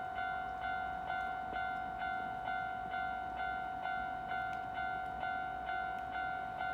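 Japanese railway level-crossing alarm ringing: an electronic bell tone struck a little over twice a second, each strike fading before the next.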